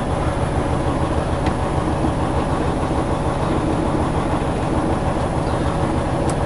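Freightliner semi truck's diesel engine idling, heard from inside the cab: a steady, even rhythmic clatter.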